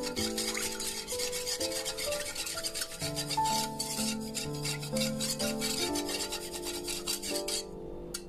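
Wire whisk beating a gelatin-and-sugar liquid in a stainless steel saucepan: rapid scraping strokes of the metal whisk against the pan, several a second, mixing to dissolve the gelatin powder and sugar. The whisking stops near the end.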